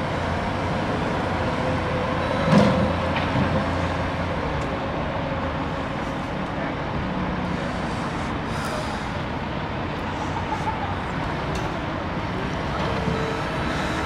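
Steady road traffic mixed with the diesel engines of a wheel loader and a skid-steer loader running, with a single loud thump about two and a half seconds in.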